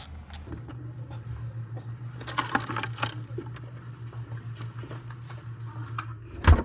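Light clicks and rustling as things are handled in an open refrigerator, over a steady low hum, then one loud thump near the end.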